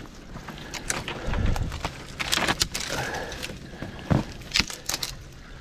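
Rustling and crunching of dry fallen leaves and twigs as someone moves through a creek-bank thicket, with a handful of sharp snaps and cracks.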